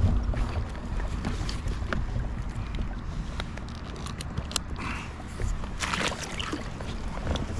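Swim fin straps being fastened by hand: rustling and sharp clicks of the strap and buckle, over a low wind rumble on the microphone. About six seconds in, a short splash as a finned foot pushes into the water.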